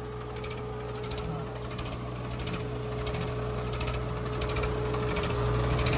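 Farmtrac 60 tractor's diesel engine running under load as it pulls against a second tractor chained to it in a tug-of-war. A steady drone with a light rapid clatter, growing slowly louder.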